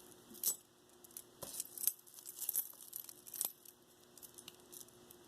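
Costume-jewellery earrings clinking and jingling as they are picked through in a bin: a scatter of light metallic clicks that thins out over the last second or so.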